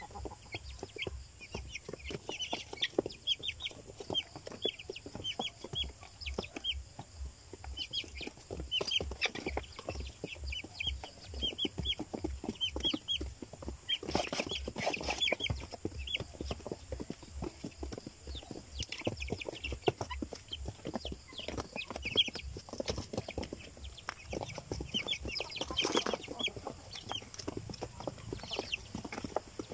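Young Rhode Island Red chicks peeping over and over in short, high, falling calls, amid tapping and scuffling on cardboard. There are louder rustling bursts about halfway through and near the end.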